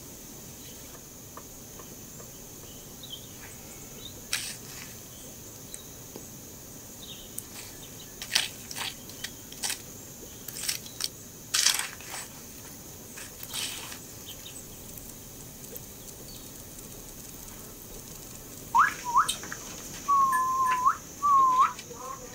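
Insects droning steadily at a high pitch, with a scatter of sharp snaps and crackles in the middle. Near the end come several loud whistle-like calls, one rising sharply and then three hooked ones.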